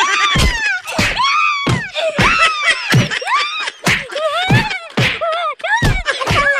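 A fight's blows landing as heavy punch thuds, about two a second, with a man crying and wailing in pain between and over them.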